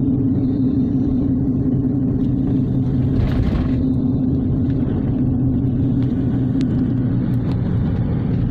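Car engine and road noise heard from inside the cabin while driving, a steady low drone. A brief rush of noise comes about three seconds in.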